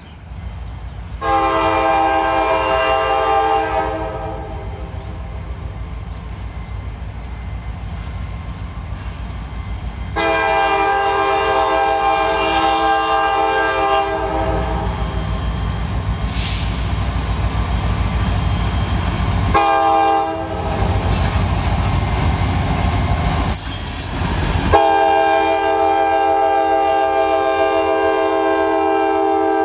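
CSX diesel freight locomotive's air horn sounding a chord of several notes in the pattern long, long, short, long, the standard grade-crossing signal. The low rumble of the locomotives and cars running past fills the gaps, loudest between the third and fourth blasts.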